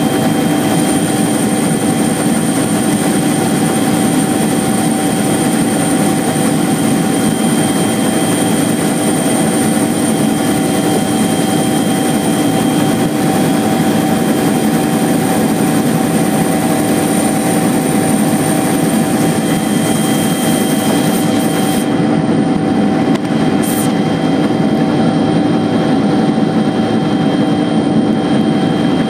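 Helicopter engine and rotor noise heard from inside the cabin in flight: a loud, steady drone with constant high whining tones over it.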